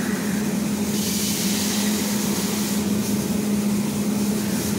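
A steady low mechanical hum, with a hiss that comes up about a second in and eases off near three seconds.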